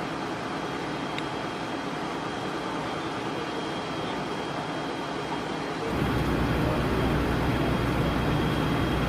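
Steady outdoor vehicle noise, a continuous rumble with a faint steady high whine over it. About six seconds in it steps up louder, with a heavier low rumble.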